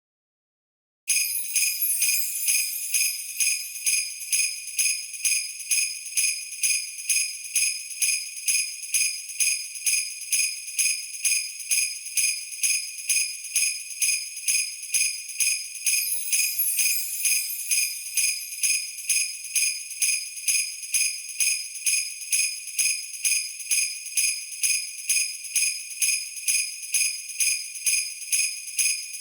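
Sleigh bells shaken in a steady rhythm, about two jingles a second, starting about a second in; a Christmas sleigh-bell sound effect.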